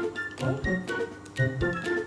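Background music: a light keyboard tune of short held notes over a repeating bass line.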